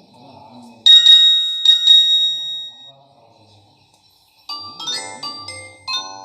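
Ringtones of the new Nokia 3310 phone: a short bright chime of four quick notes about a second in that rings out by about three seconds, then after a brief pause a second, faster melodic ringtone begins.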